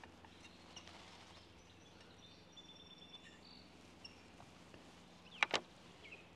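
Faint songbirds calling over a quiet outdoor background, with a sharp double clack about five and a half seconds in from a shotgun cleaning rod being knocked.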